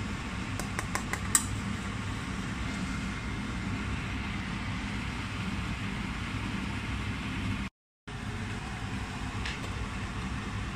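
A metal spoon clinks a few times against a stainless steel pot while spinach is stirred, over a steady background hum.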